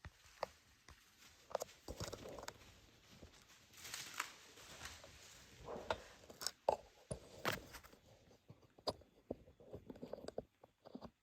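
Irregular crunching and rustling with scattered sharp clicks, like movement through dry leaves or handling of gear.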